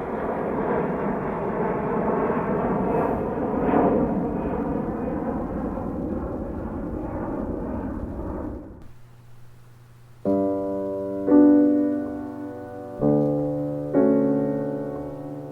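Jet airliner's engines at takeoff power as it climbs away, a steady rumble with a drifting engine whine, cut off abruptly about nine seconds in. After a short pause, slow piano chords begin, four struck in the last five seconds.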